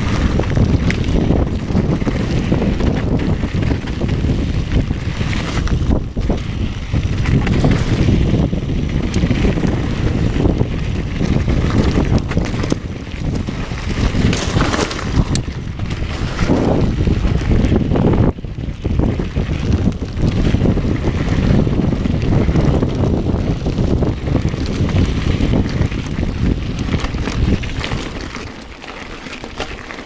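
Wind rushing over the microphone of a camera riding a YT mountain bike at speed down a rough gravel and rock trail, mixed with the rumble and rattle of the tyres and bike over loose stones and the odd sharp knock. The noise drops noticeably near the end as the bike reaches slower singletrack among trees.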